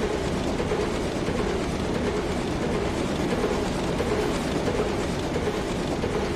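A German U-boat's diesel engines running steadily in the engine room, with a close, loud, rhythmic mechanical clatter.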